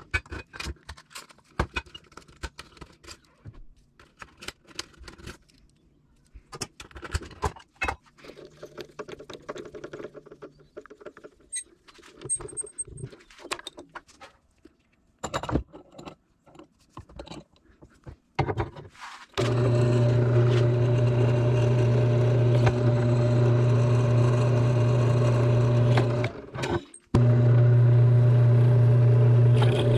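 Metal parts clicking, clinking and knocking in irregular taps. About two-thirds in, a loud steady machine hum takes over, cutting out briefly once and starting again.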